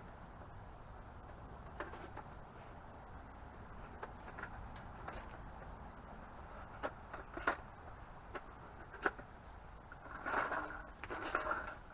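Steady high drone of insects, with scattered sharp clicks and knocks as parts of a Coleman compact folding table are fitted together, and a longer rattling clatter near the end.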